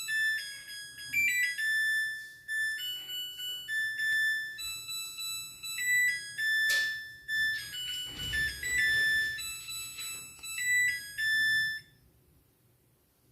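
Samsung EcoBubble washing machine's built-in buzzer playing its end-of-program melody, a tune of short, high beeping notes that stops about twelve seconds in: the signal that the program has finished. A single click sounds about seven seconds in.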